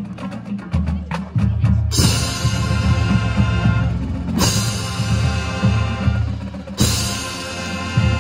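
High school marching band playing: about two seconds of percussion alone, rapid sharp drum strikes, then the full band of winds and drums comes in with loud sustained chords. The band hits fresh accented chords again about halfway through and near the end.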